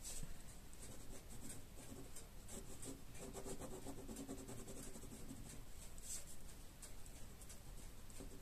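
Ballpoint pen scratching on paper in short, irregular drawing strokes, faint.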